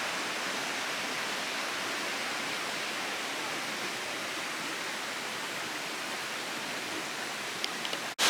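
Steady rush of flowing river water, an even hiss with no pitch. It breaks off abruptly just before the end.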